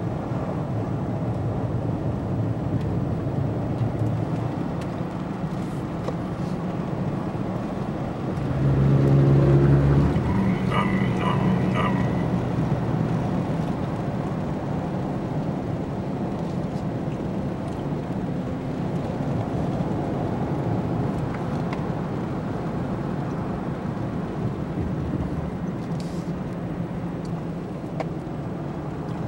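Steady engine and tyre noise of a car driving, heard from inside the cabin. About nine seconds in there is a brief, louder pitched sound.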